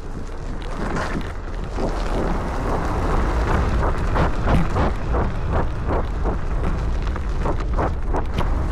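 Wind buffeting the microphone with a steady low rumble while an electric scooter rides over rough forest ground, with many short knocks and rattles from the bumps.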